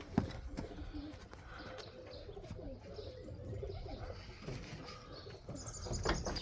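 Domestic pigeons cooing softly in a loft, a low, wavering murmur, with a couple of sharp knocks, the louder one near the end.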